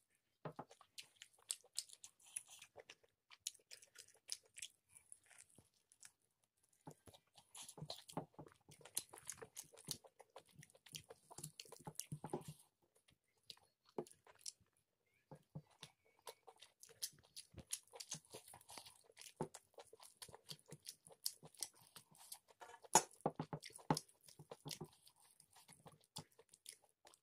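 A person chewing and biting chicken curry and rice eaten by hand: many short, irregular mouth clicks and chewing noises, close to the microphone.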